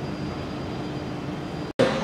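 Steady mechanical hum of running machinery with a faint high whine, broken off abruptly near the end.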